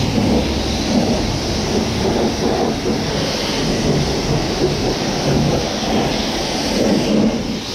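Continuous rumbling road and engine noise of a vehicle being driven, with a steady hiss over it.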